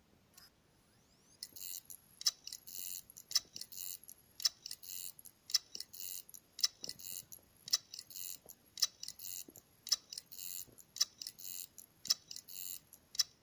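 Failing 2.5-inch laptop hard drive, running with its cover off, clicking over and over. Each sharp tick comes with a short scratchy buzz, about twice a second, after a faint rising whine about a second in. This repeated clicking is the sign of a dead drive that cannot be repaired.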